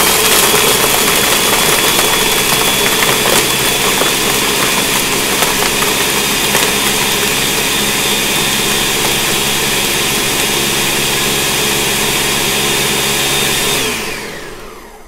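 Countertop blender running at high speed, blending ice and liquid into a frozen margarita slush: a loud, steady motor whine. About 14 seconds in it is switched off, and the motor spins down with a falling pitch.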